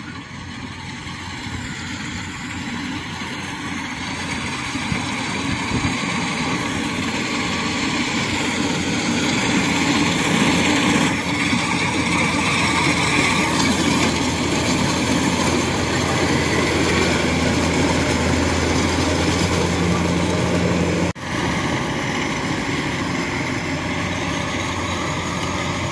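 Kubota rice combine harvester running steadily as it cuts standing rice. It grows louder over the first ten seconds or so as the machine comes close, drops out for a moment about 21 seconds in, then carries on.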